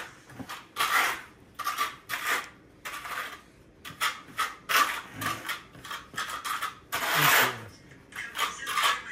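Steel notched trowel scraping thin-set mortar across the back of a ceramic floor tile, back-buttering it in repeated short strokes, with a longer, louder stroke about seven seconds in.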